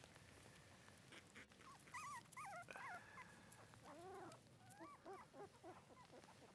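Month-old shiba inu puppies whimpering in short, high, wavering cries, in two bouts: one about two seconds in and another from about four to five and a half seconds.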